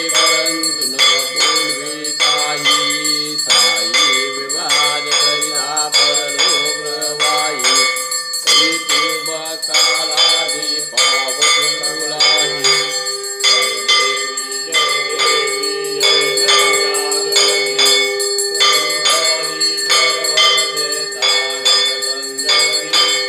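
Brass hand bell (ghanta) rung continuously in a steady rhythm of strikes during a Hindu aarti, mixed with other musical sound. A long held tone comes in about halfway.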